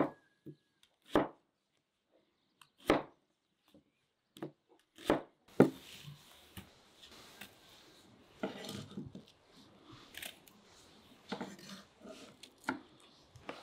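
Knife cutting an onion on a wooden chopping board: a series of separate sharp knocks as the blade goes through and strikes the wood, one every second or two, with longer, busier noises in the second half.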